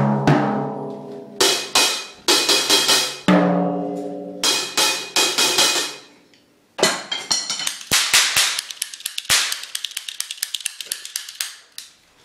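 Acoustic drum kit being played: single drum strokes that ring with a clear pitch, mixed with cymbal crashes that decay slowly. After a short pause about six seconds in, a fast run of strikes on the drums and cymbals follows.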